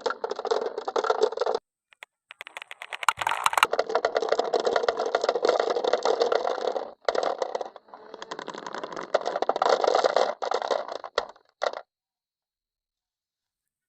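Marbles rolling and clattering down a HABA wooden wavy marble-run slope: a rapid rattle of small wooden knocks that breaks off briefly a few times and stops suddenly about twelve seconds in.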